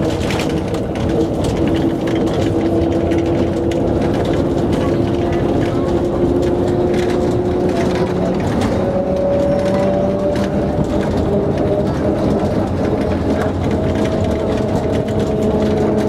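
Translohr rubber-tyred tram on Michelin tyres running along its guide rail, heard from inside the driver's cab. Its electric drive gives several steady whining tones that drift slowly up and down in pitch, over a constant rumble of tyres and body.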